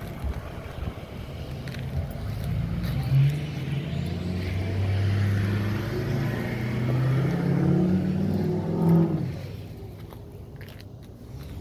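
A motor vehicle's engine running close by, with a shifting engine note that builds over several seconds and then drops away sharply about nine seconds in.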